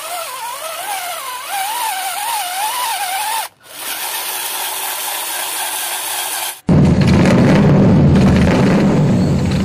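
Small electric motor and gearbox of a WPL D12 RC truck whining, its pitch wobbling up and down over and over as it drives through mud, with a short break about three and a half seconds in. Near seven seconds a sudden, much louder low noisy sound comes in and stays the loudest thing.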